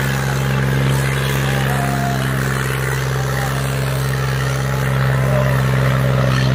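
John Deere tractor's diesel engine running hard and steady under heavy load as it drags a disc harrow through ploughed soil, giving a loud, unbroken low drone.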